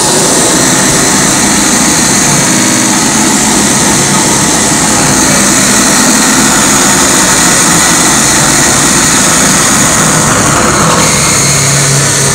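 Loud live experimental noise music from electronic gear: a steady, dense wall of hissing noise with a few faint held low tones underneath.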